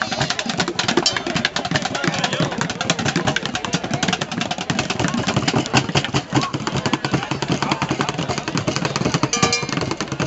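Fast, continuous drumming on plastic buckets: a dense, unbroken run of strikes.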